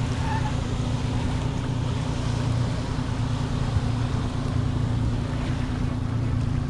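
A boat motor running at a steady low speed, a constant low hum over wind and water noise.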